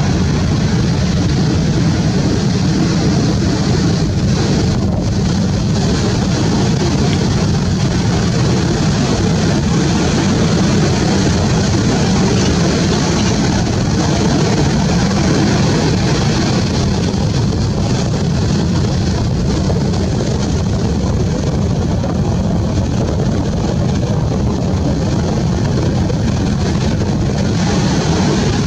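Steady, deep roar of beach surf, with no distinct events.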